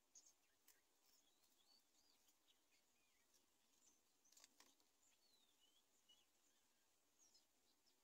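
Very faint outdoor ambience with scattered short chirps and gliding whistles of birds, and a few soft clicks about four and a half seconds in.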